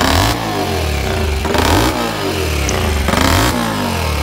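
Small 75 cc single-cylinder Ceccato 75 engine revved in repeated throttle blips, its pitch rising and falling with a surge about every second and a half.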